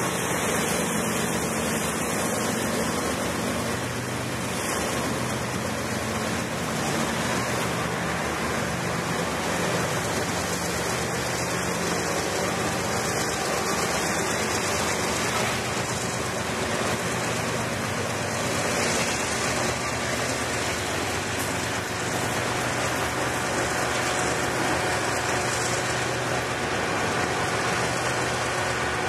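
Freight train hopper cars rolling past close by: a steady rolling noise of steel wheels on rail.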